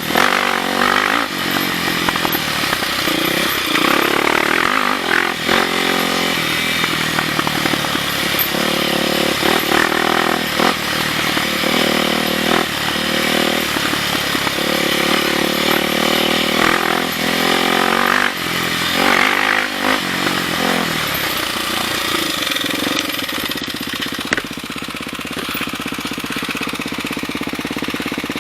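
Dirt bike engine revving up and down repeatedly as it is ridden along a trail. Near the end it settles into a steadier, slightly quieter run.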